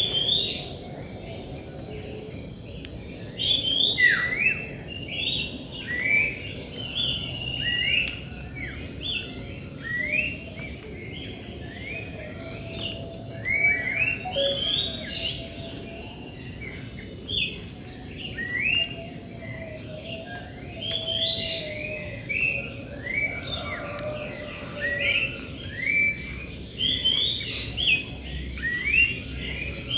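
Wild birds chirping, with many short, quickly rising notes coming thick and fast, over a steady high-pitched insect drone of crickets.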